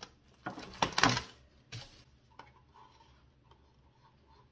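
Plastic cups being handled while resin is poured from a measuring cup into a disposable cup: a short, loud plastic rustle and clatter about a second in, then a few faint clicks as the measuring cup is scraped out.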